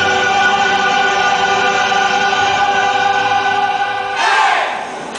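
A choir with music holding one long sustained chord, which breaks off suddenly about four seconds in, followed by a brief burst of noise.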